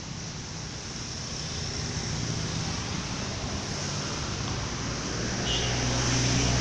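Roadside traffic noise that slowly grows louder. About five seconds in, a heavy vehicle's low, steady engine drone comes up as it approaches.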